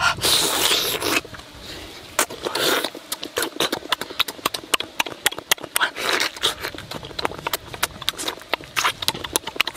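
Close-up eating sounds: rapid wet smacking and chewing clicks from someone eating a cooked fish with their hands, broken by three short slurps, the first lasting about a second.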